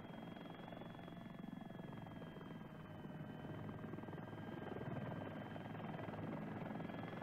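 Helicopter in climbing forward flight heard from inside the cockpit: a steady high engine whine over the rotor's fast pulsing beat, slowly growing louder.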